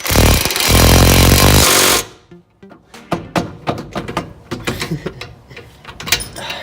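Power impact wrench hammering loudly for about two seconds, then a run of sharp metallic clicks and clinks from hand tools on the suspension parts.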